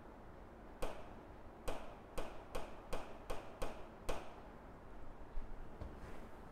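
Stylus tapping on the glass of an interactive display as words are written: a run of about ten sharp clicks over some three seconds.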